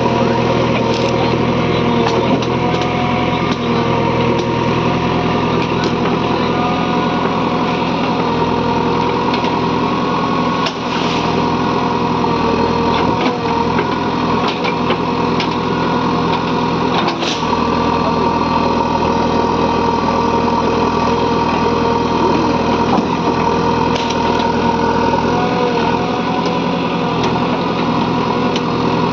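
Diesel engine of a JCB 3DX backhoe loader running steadily, with a few sharp knocks through it.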